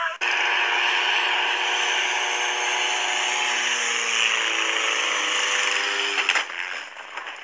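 Small aircraft's engine running at high power: a steady loud drone with several held whining tones, dropping away about six seconds in.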